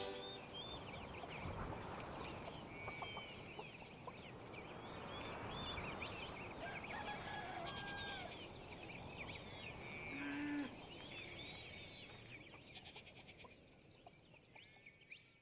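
Faint farmyard ambience: many small birds chirping, with a short call from a farm animal about ten seconds in. It fades away soon after.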